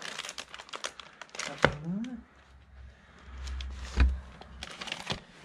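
Plastic punched pockets in a ring binder crinkling and clicking as the pages are handled and turned, with a few sharper knocks, the loudest about four seconds in, and a brief low murmur about two seconds in.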